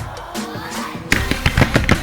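Pop soundtrack music with a quick run of sharp firework bangs and crackles in the second half, about six reports in under a second.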